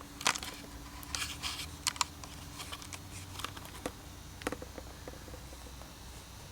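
A scatter of light clicks, taps and brief rustles, most of them in the first five seconds, over a faint steady hum.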